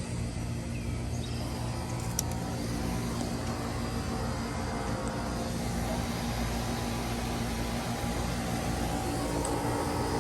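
Carrier Tech 2000 air conditioner condensing unit running: a steady compressor hum with the whoosh of the condenser fan, the sound edging slightly louder through the stretch. A single light tick about two seconds in.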